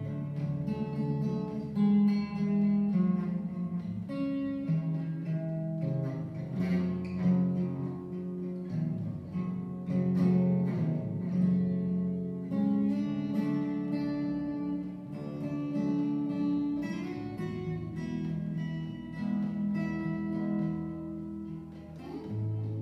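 Solo cutaway acoustic guitar, played by hand: a continuous instrumental passage of plucked notes and chords ringing over lower bass notes.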